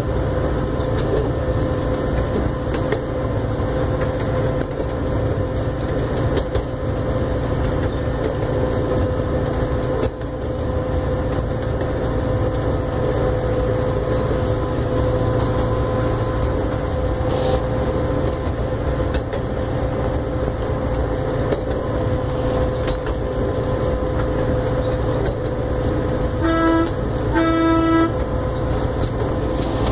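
Miniature park train running along its track, a steady low rumble of wheels and motor heard from aboard. Near the end it gives two short horn toots, the second a little longer.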